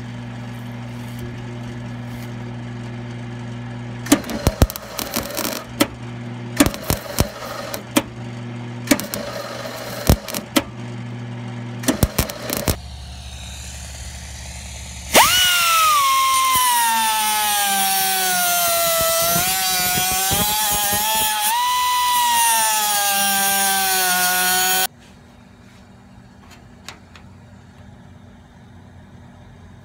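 Sheet-metal patch being welded in with a run of short crackling tack welds over a steady electrical hum. From about 15 seconds in a pneumatic cutoff tool whines loudly, its pitch dropping and wavering as it grinds the weld down, and it cuts off abruptly about ten seconds later.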